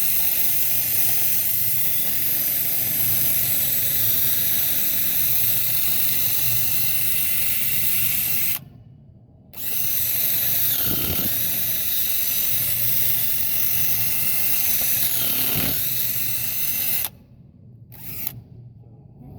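Power drill running with a bit boring packed snow out of a metal peg cylinder set in the rink ice. The motor's whine dips briefly under load a couple of times, stops for about a second partway through, and cuts off near the end.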